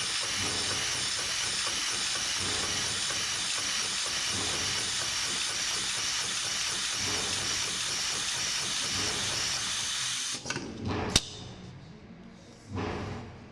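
HIGHTEX 71008 heavy-duty automatic pattern tacking machine running, sewing a bar-tack through a thick braided rope, with a steady hiss. About ten seconds in the run ends with a few clicks and one sharp snap as the machine stops.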